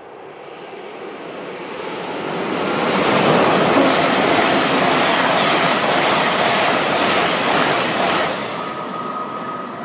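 LNER Class 801 Azuma electric train passing through the station at speed. A rush of wheel and air noise rises as it approaches, stays loud with a rapid repeating beat as the carriages go by, and fades away with a faint steady ringing tone as it recedes.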